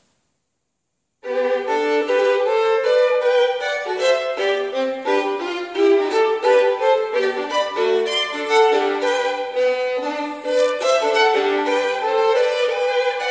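Solo violin playing a quick passage of changing notes, often two at a time, starting abruptly about a second in after a moment of dead silence.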